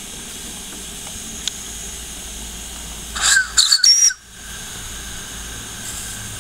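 Steady hiss of steam from a small coal-fired model steam locomotive. About three seconds in, a loud burst of steam with shrill whistling tones blasts out around the cylinders for about a second, then the steady hiss resumes.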